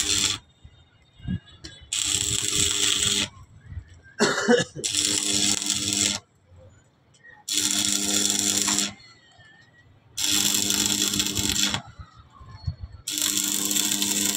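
Arc welder crackling in five runs of about a second and a half with short pauses between them, a steady low hum under each run, as steel tower legs are welded to wall brackets. A brief louder sound comes about four seconds in.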